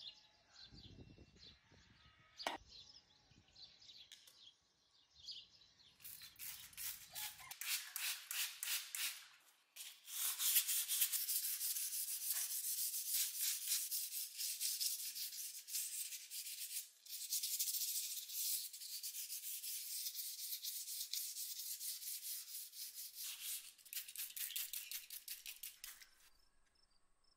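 Rapid back-and-forth scrubbing of a wet, freshly etched Damascus steel karambit blade on a flat plate, several strokes a second. It starts about six seconds in and stops shortly before the end.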